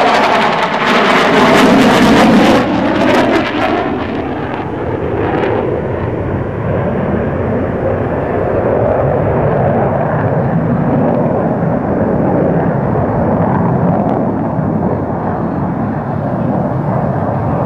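A pair of F-4 Phantom II fighters, with J79 turbojet engines, roar low overhead. For the first three or four seconds the jet noise is loud and harsh, dropping in pitch as they pass. It then settles into a steady, duller rumble as they fly away.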